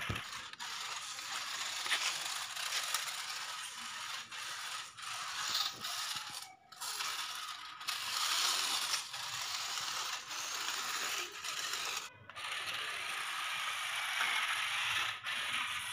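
Toy-grade 4WD RC rock crawler's small electric motors and plastic gearboxes whirring and grinding as it drives and climbs, the pitch and level rising and falling with the throttle. The sound breaks off briefly twice.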